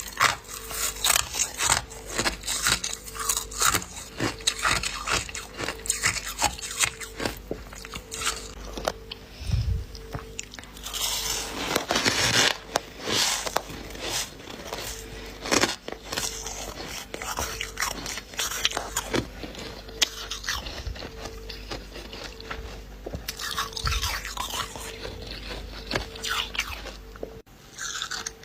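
A person biting and chewing crunchy frost ice, in a dense, continuous run of sharp crunches.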